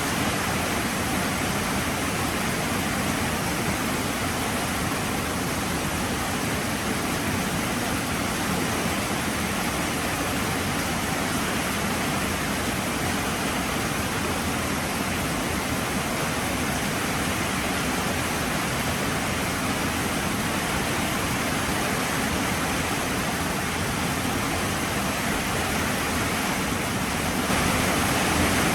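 Heavy rain falling in a steady, dense hiss, growing a little louder near the end.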